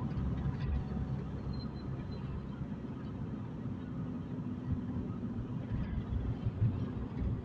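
Car cabin interior while driving: a steady low rumble of engine and road noise.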